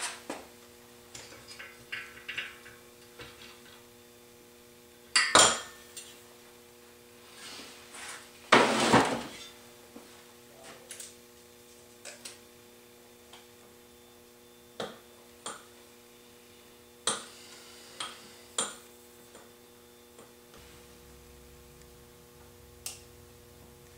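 Metal hand tools and engine parts of a 1955 Zündapp R150S scooter engine clinking and knocking on a workbench as the engine is taken apart. Scattered sharp clicks throughout, with two louder clattering handlings about five and nine seconds in, over a faint steady hum.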